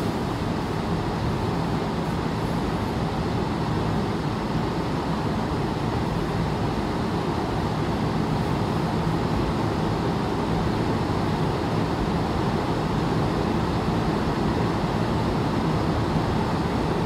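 Steady rain, a constant deep wash of noise with no separate drops standing out.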